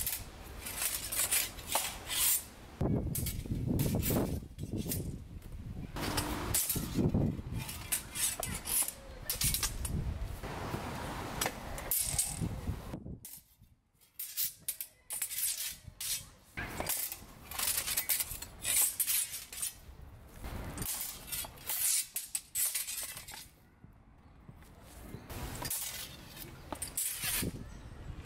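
Steel training swords and steel bucklers clashing and scraping against each other in repeated short exchanges of a sword-and-buckler drill. The clanks come in quick bunches, with a brief lull about halfway through.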